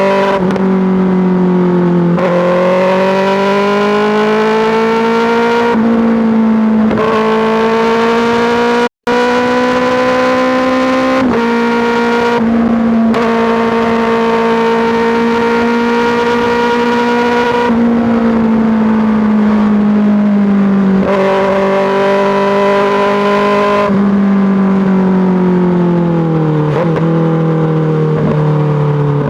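2024 Kawasaki ZX-6R's inline-four engine through an M4 GP slip-on exhaust under way: the pitch climbs as the throttle is rolled on and steps down at each of several gear changes, then falls away as the bike slows near the end. The sound cuts out for an instant about nine seconds in.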